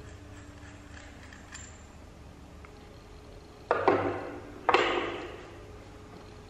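Two knocks of small metal microphone connector parts being set down on a wooden tabletop, about a second apart, each ringing briefly as it fades.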